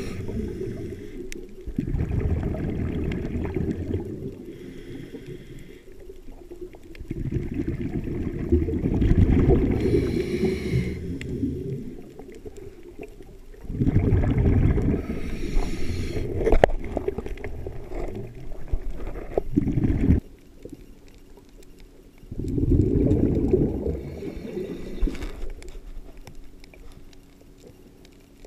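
A diver's breathing heard underwater: about four long rumbling bursts of exhaled bubbles a few seconds apart, with quieter gaps between.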